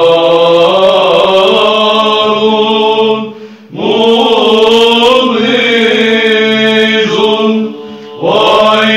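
Byzantine chant sung in Arabic by a group of male monks' voices in the fifth (plagal first) tone. A steady low drone note is held beneath the moving melody, and the singing breaks off briefly twice, about three and a half seconds in and again near the end.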